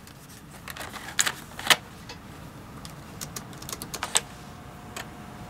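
Scattered clicks, then a run of keystrokes on a laptop keyboard. After the last key press, about four seconds in, a steady hum starts as the laptop's 3.5-inch floppy drive spins to read the diskette.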